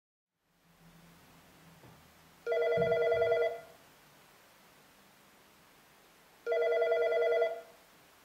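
Mitel MiVoice IP desk phone ringing with a fast warbling trill, two rings of about a second each, some four seconds apart. It is the hold-recall ring, the reminder that a call left on hold is still waiting. A low thump comes during the first ring.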